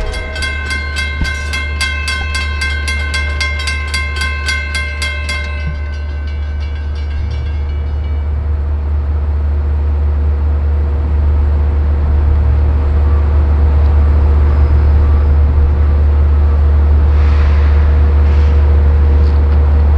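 Railroad crossing bell ringing in rapid, even strokes, stopping about five seconds in, over a steady low rumble that grows louder as a train approaches the crossing.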